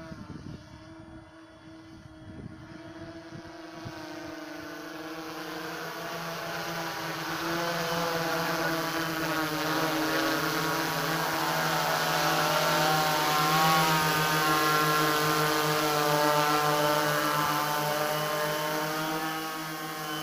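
Hexacopter drone with U7 motors and 18-inch propellers in flight: a steady multi-tone propeller buzz, wavering slightly in pitch, that grows much louder as the drone comes in close, peaks around the middle and eases a little towards the end.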